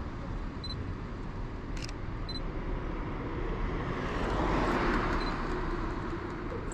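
A vehicle passes, its sound swelling and fading about four to five seconds in, over a steady low outdoor rumble. A single sharp click comes near two seconds in.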